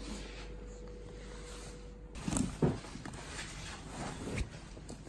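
Soft handling noises: a few light knocks and rustles starting about two seconds in, as cloth tote bags are pulled out of a wicker basket. A faint steady hum sits underneath for the first couple of seconds.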